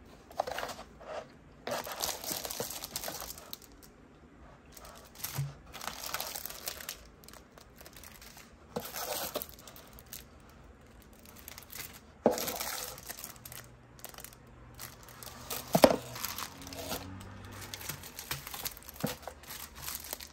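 Plastic packaging crinkling and rustling as items are taken out of a cardboard box, with a couple of sharp knocks partway through as the box or its contents are handled.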